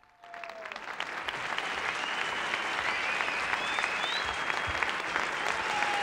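Audience applause. It rises out of near silence just after the start, swells over the first second, then holds steady.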